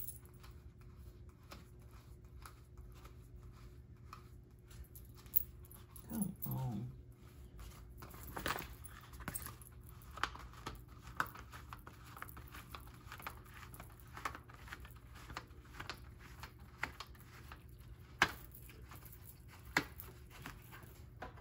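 Faint steady hum of a laminating machine running a sheet through, under scattered clicks, taps and paper rustles of spiral notebooks being picked up and handled. A short low whine-like sound comes about six seconds in.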